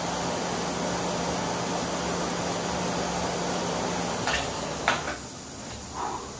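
Concept2 BikeErg's air-resistance fan flywheel whooshing steadily under hard pedalling, then dying away about five seconds in as the pedalling stops. Two clicks come as the whoosh fades.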